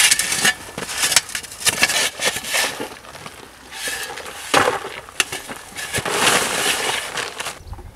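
Metal shovels scraping into dry, stony earth and tipping it into plastic buckets: a run of sharp scrapes and gravel clatters, a louder knock about four and a half seconds in, and a longer rush of pouring soil near the end.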